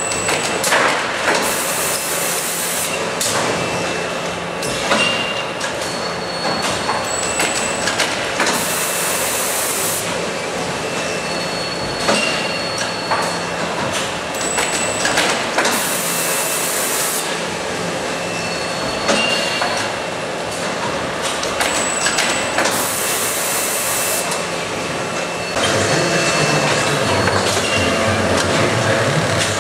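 Seedling-tray press and sowing line running: a continuous machine clatter with knocks, and a sharp hiss that comes back about every seven seconds as the press cycles. Near the end a louder, lower hum joins in.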